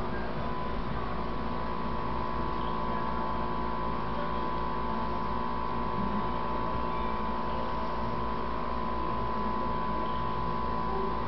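A steady mechanical hum with a constant tone near 1 kHz and a low rumble underneath, holding level throughout; no crane calls stand out.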